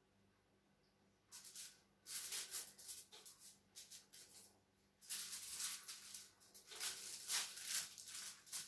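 Short, irregular bursts of rustling and hissing from rubber-gloved hands applying blue dye to yarn on a foil-lined tray. The bursts start about a second in and come in quick runs.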